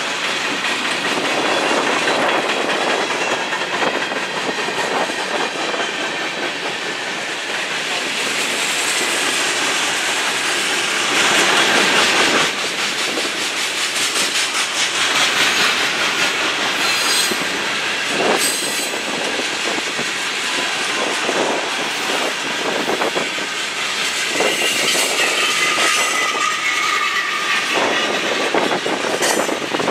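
A freight train of covered hoppers, tank cars and lumber-loaded flatcars rolling past: a steady rumble of steel wheels on the rails with clickety-clack over the rail joints. Thin wheel squeal comes in during the last few seconds.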